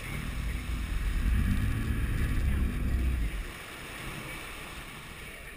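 Wind and rushing water buffeting the microphone alongside a moving fishing boat, a heavy rumble with no clear pitch that eases off about three and a half seconds in.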